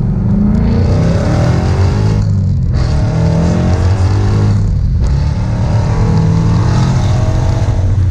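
Car engine heard from inside the cabin, pulling hard at wide-open throttle. Its pitch climbs three times, with two brief breaks for upshifts about two and a half and five seconds in.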